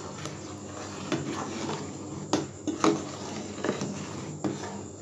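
Metal ladle stirring urad dal porridge in a metal pot, clinking sharply against the pot a few times.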